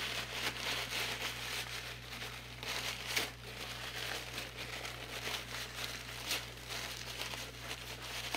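Shop rags crumpling and rubbing as gloved hands wipe transmission fluid and grime off a transmission pan's magnet and out of the metal pan, with a sharper crackle about three seconds in.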